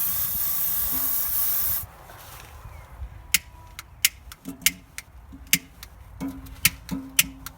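Aerosol deodorant can spraying in a steady hiss that cuts off about two seconds in, followed by a string of irregular sharp clicks.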